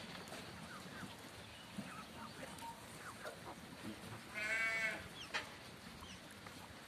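A sheep in the flock bleats once, a single wavering call lasting a little over half a second about four and a half seconds in. Faint short calls and small knocks from the flock run underneath.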